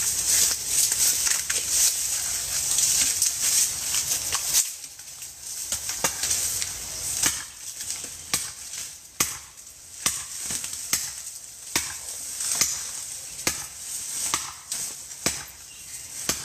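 Dry leaves and brush rustling for about four and a half seconds, then a long blade chopping into a wooden tree trunk with sharp blows at about one a second.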